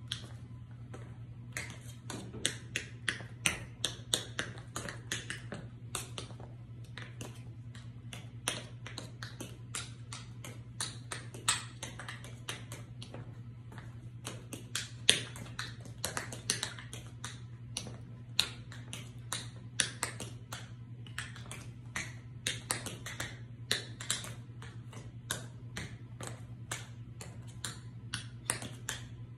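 Metal taps on patent-leather tap shoes striking a hard tiled floor: quick, uneven runs of sharp clicks, some louder accented strikes among them, over a steady low hum.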